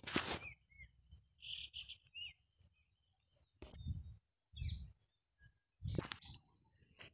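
Outdoor nature ambience: a steady high insect buzz with short bird chirps, broken by a few dull low thumps and brief noisy bursts.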